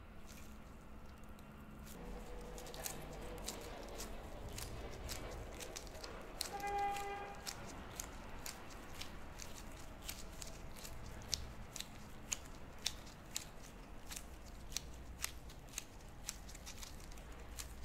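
Gloved hands kneading and folding soft bean-paste dough, with irregular sharp sticky clicks and crackles of the gloves on the dough. A short tone sounds once, about seven seconds in.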